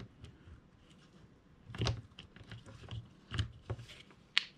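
A few light clicks and knocks of hard plastic glue-gun parts being handled and seated in the opened housing half, starting about two seconds in.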